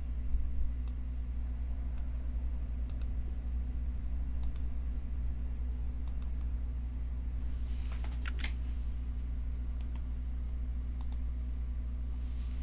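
Scattered single clicks at a computer, about a dozen spread out with a short cluster around two-thirds of the way in, over a steady low electrical hum.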